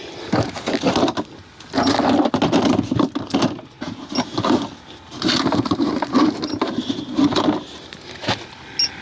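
Irregular knocks, clicks and rustling of someone moving about and handling equipment.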